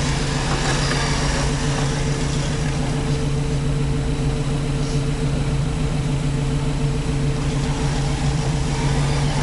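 Rock-crawler truck engine running steadily at low revs, an even hum with no revving.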